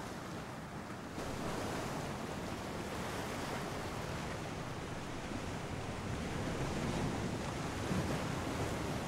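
Sea waves washing on a rocky shore, a steady rushing noise with wind buffeting the microphone; it grows a little louder about a second in.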